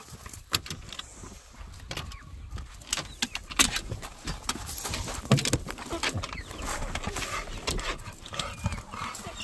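A dog scrambling into the back seat of a car: irregular claw clicks, knocks and thumps against the door sill and seat, with rustling, and the strongest knocks about three and a half and five seconds in.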